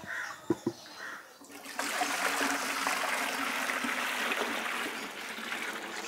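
Water poured from a metal bucket into a small glass aquarium, a steady splashing stream that starts about two seconds in. Two brief knocks of the bucket being handled come just before.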